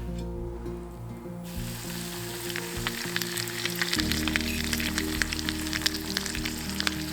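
Food frying, sizzling and crackling with many quick pops, starting about a second and a half in, over background music.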